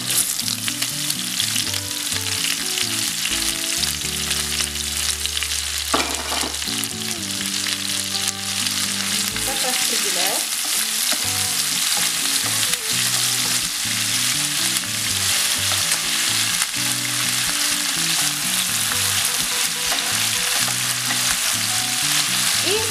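Chicken-breast pieces and freshly added chopped onion sizzling in hot oil in a frying pan: a steady hiss throughout, while a wooden spatula stirs them.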